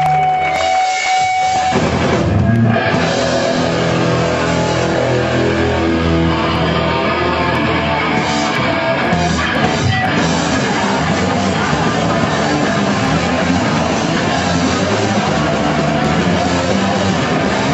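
Loud rock music with guitar and a drum kit.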